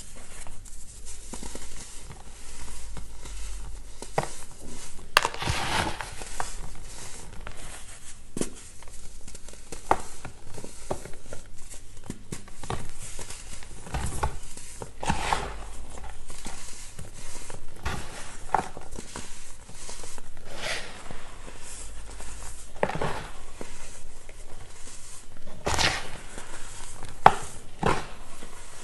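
Blocks of compressed baking soda crushed and crumbled by hand into loose powder: irregular crunches and crumbly crackles, with louder snaps about five seconds in and again near the end.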